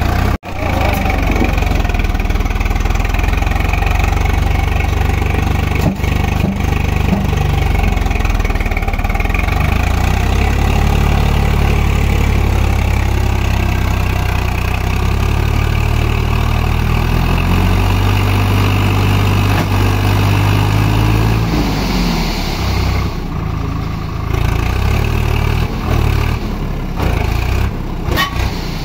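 Swaraj 744 FE tractor's three-cylinder diesel engine running steadily at raised revs while its hydraulic lift tips a loaded sand trailer. The engine note rises and falls again past the middle, then settles lower.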